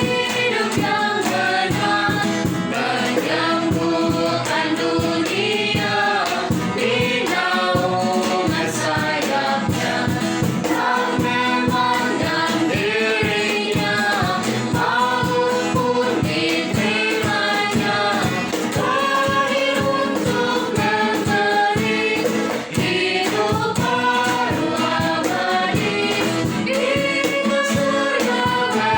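A choir singing a hymn-like piece with accompaniment, the voices sustained and steady in loudness.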